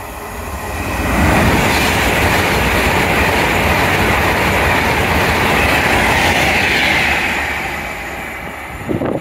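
Avanti West Coast Class 390 Pendolino electric express passing at high speed: a rush of wheels on rail and air builds over the first second, holds steady for several seconds, then fades as the train draws away. A short thump comes near the end.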